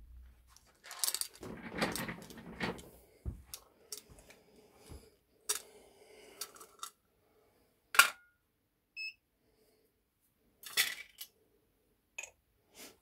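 Small lead airgun slugs clinking and rattling against a metal tin and being set down on a digital scale's pan, a string of sharp metallic clicks with one loud click about eight seconds in. A short electronic beep sounds about nine seconds in.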